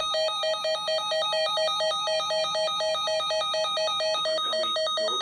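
Rapid electronic alert beeping, a buzzy pulsed tone at about seven beeps a second, introducing a broadcast severe weather statement. A voice starts under the beeps about four seconds in.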